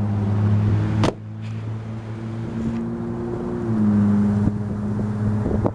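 A car door slams shut about a second in, over the steady hum of a Volkswagen New Beetle's engine idling; the engine note drops slightly a little past halfway.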